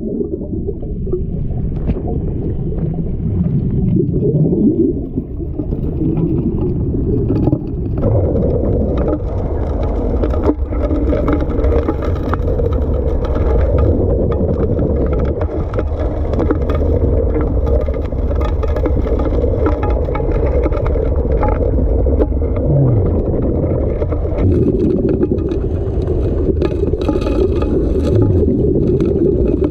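Small petrol engine on a gold dredge running steadily, its pitch sweeping up or down briefly now and then.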